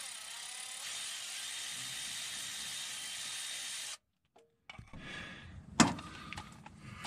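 Power ratchet running steadily for about four seconds, spinning out the 13 mm bolt on the engine's motor mount, then cutting off abruptly. After a short gap come light metal clinks and one sharp knock.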